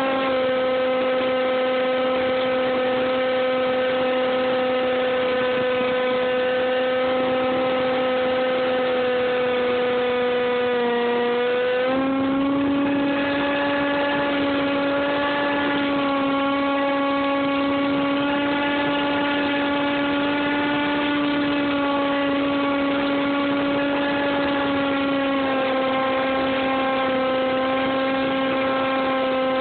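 Brushless electric motor and pusher propeller of a Dynam Hawk Sky RC plane running in flight, heard close up from on board as a steady whine. The pitch sags slightly about eleven seconds in, rises at about twelve seconds as the throttle opens, and eases down a little near the end.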